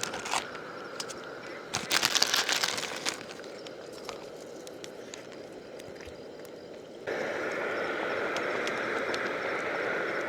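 Plastic packaging crinkling and rustling in bursts, loudest about two to three seconds in, then a steady hiss that starts suddenly about seven seconds in.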